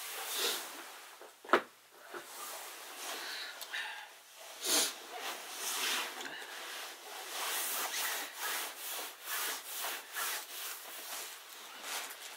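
Close rustling, rubbing and scraping as someone moves and handles things right by the microphone, with one sharp knock about a second and a half in.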